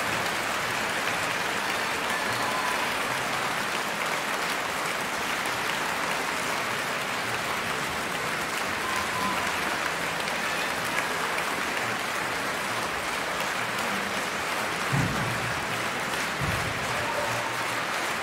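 A concert-hall audience applauding, a steady dense clapping. Near the end, two dull low thumps come about a second and a half apart.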